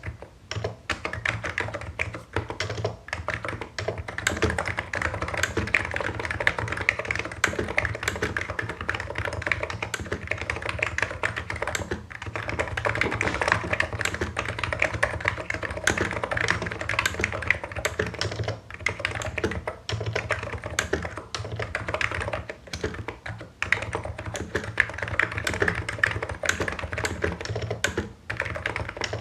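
Typing on a Hansung Office Master full-size electrostatic capacitive keyboard with low Cherry-profile keycaps: a fast, continuous run of keystrokes with only a few brief pauses.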